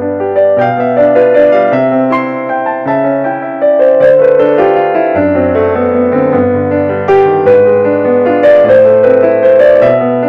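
Background piano music: struck notes and chords over bass notes that change every second or two.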